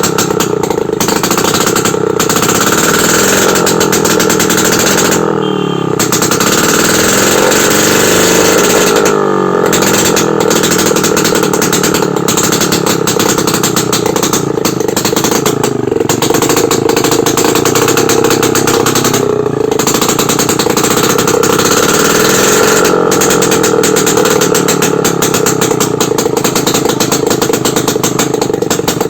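Yezdi two-stroke motorcycle engine running loud without silencers, the open exhaust rattling fast; the revs dip and pick up again a few times.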